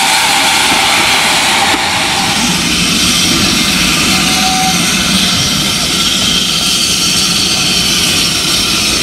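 Small industrial steam saddle-tank locomotives working a train past at low speed, heard as a loud, steady rush with no clear exhaust beat. The sound shifts abruptly about two seconds in.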